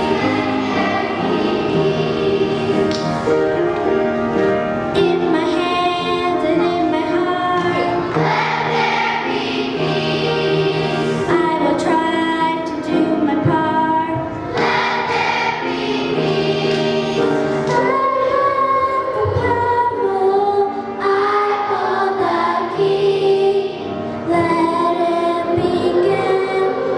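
Elementary school children's choir singing a song with sustained, changing notes over a steady low accompaniment.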